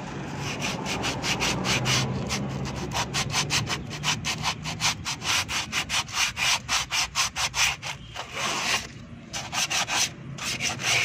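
Sandpaper rubbed briskly back and forth over the lining of a rear drum-brake shoe, about four scraping strokes a second, with a couple of short pauses near the end. It is scouring the carbon glaze off the lining so the brake grips properly.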